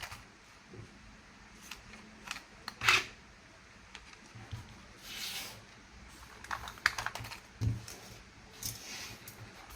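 Scattered light clicks and taps of small plastic toy parts being handled, irregular like typing, with a brief rustle about five seconds in.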